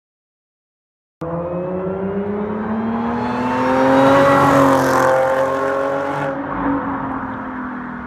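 Audi S4 B8's 3.0-litre supercharged V6, fitted with an aftermarket exhaust, accelerating hard past: after about a second of silence the engine note climbs, is loudest as the car goes by, then drops in pitch and fades as it pulls away.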